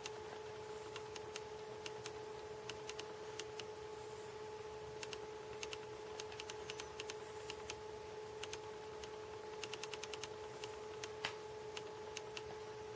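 Faint, irregular clicks, some in quick runs of four or five, over a steady hum; one click a little louder near the end.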